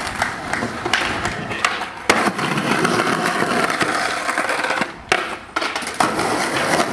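Skateboard wheels rolling on rough concrete, with several sharp clacks of the board hitting the ground, the loudest about two seconds in.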